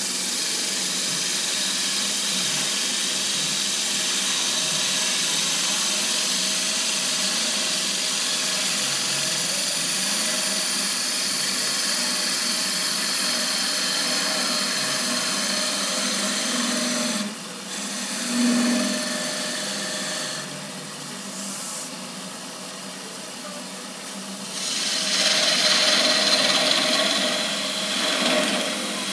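Wood lathe spinning a thin-walled goblet while a hand-held turning tool shaves the wood, a steady hissing cut. The cutting drops away about two thirds through, then comes back louder near the end.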